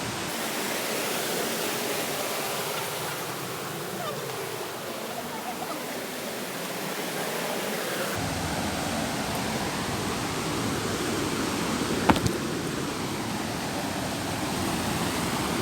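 Steady rush of a mountain river's flowing water, with a single sharp knock about twelve seconds in.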